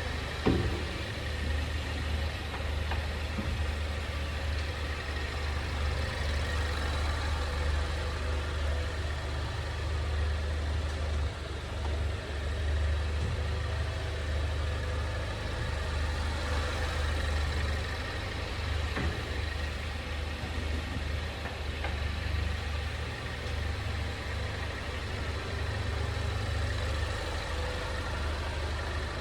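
Steady low rumble of a 2020 Ford Mondeo wagon, with a single short knock from the underbody about half a second in. The knock is the abnormal chassis noise the owner is documenting in the nearly new car.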